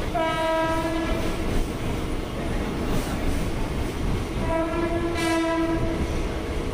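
Two steady horn blasts from a Mumbai suburban electric train, each a little over a second long and about three seconds apart, over the continuous rumble of the train running.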